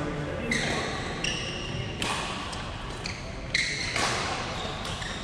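Badminton players' shoes squeaking several times on the court floor during a rally, mixed with a few sharp racket strikes on the shuttlecock.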